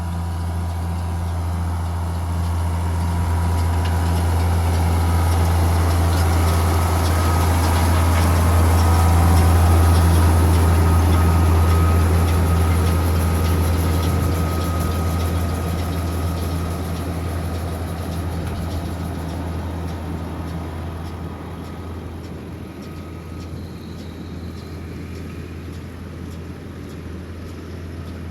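A tractor engine runs at a steady speed with a strong low hum. It grows louder to a peak about ten seconds in, then slowly fades.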